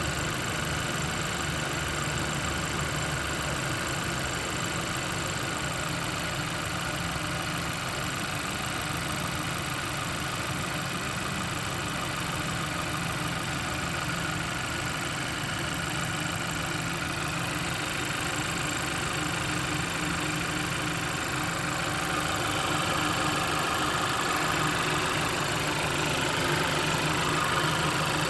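Honda Civic Type R (FK8) 2.0-litre turbocharged four-cylinder engine idling steadily, with a whine over the idle note. It grows slightly louder in the last few seconds.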